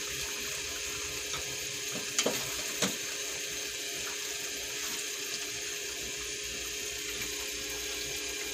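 A thick tomato-based stew sizzling steadily in a nonstick pan while a wooden spatula stirs through the potatoes, carrots and peas. The spatula knocks against the pan a few times about two to three seconds in.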